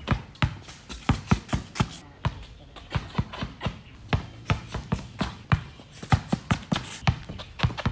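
A basketball dribbled hard and fast on outdoor concrete, about three to four sharp bounces a second in an uneven rhythm.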